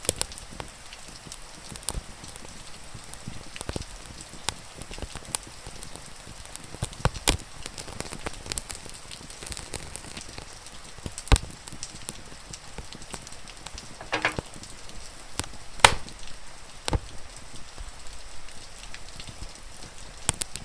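Wood fire crackling, with irregular sharp pops over a steady hiss of falling rain. A few pops stand out louder, the loudest about three-quarters of the way through.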